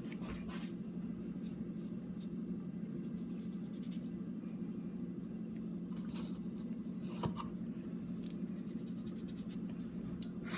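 Baking soda being scooped and added by hand: light scraping and rustling, with a short clink about seven seconds in, over a steady low hum.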